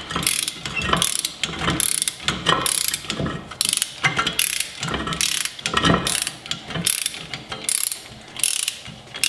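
Hand ratchet clicking in repeated back-and-forth strokes, about two a second, as it turns the screw of a pitman arm puller that presses the front CV axle shaft out of the wheel hub.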